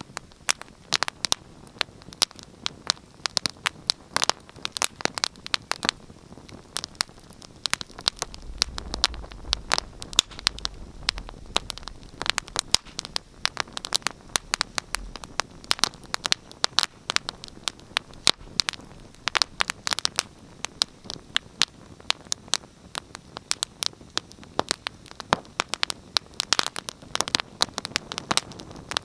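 Wood fire crackling, with many irregular sharp pops and snaps over a soft hiss. A low rumble comes in for a few seconds near the middle.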